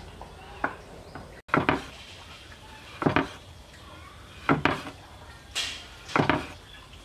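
Broad kitchen knife chopping fresh coconut meat into strips on a round wooden cutting board. Each stroke lands as a sharp knock of blade on wood, about one every second and a half, starting about a second and a half in.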